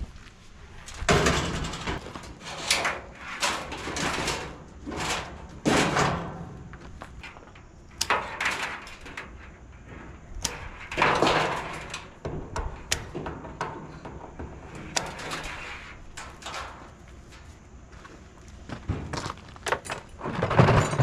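Irregular knocks, clanks and scrapes of a clothes dryer's sheet-metal parts being handled and pulled apart for scrap.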